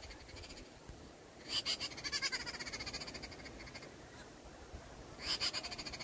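A small bird making rapid, pulsing chattering calls in two bouts, one starting about a second and a half in and another near the end. It is an alarm scold at a rat snake raiding the nest.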